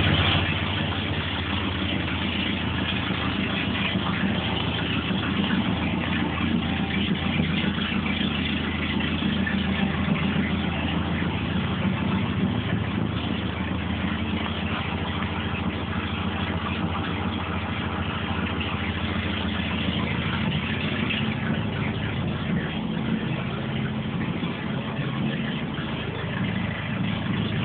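Volvo 360's four-cylinder engine running steadily at idle, with a sound its owner calls crazy.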